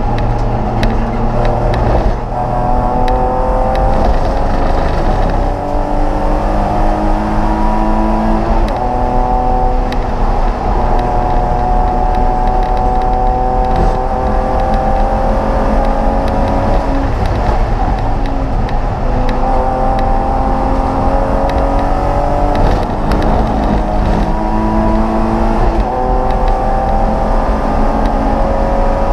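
Race car engine heard from inside the cabin, running hard at full throttle. Its pitch climbs steadily through each gear and drops at several quick gear changes, with long steady pulls between them.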